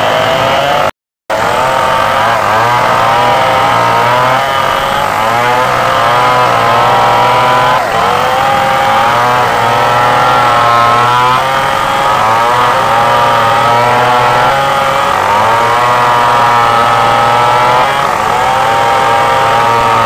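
Two Stihl chainsaws, one a Stihl 381, running near full throttle while ripping a big log lengthwise along the grain. Their engine pitch wavers as the chains bite and ease in the cut. The sound cuts out completely for a moment about a second in.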